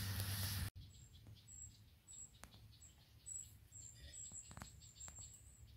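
Wood campfire crackling under a hanging cooking pot, cut off abruptly under a second in; then short, high-pitched chirps repeating about twice a second over a quiet background.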